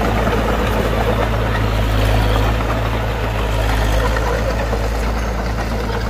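Heavy construction machine's diesel engine running steadily.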